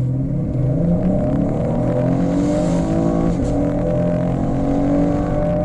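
2018 Chevy Camaro RS's 3.6-litre V6, on its stock exhaust without the active exhaust, accelerating hard from a standstill: the revs climb steadily, drop sharply at an upshift about three and a half seconds in, then climb again.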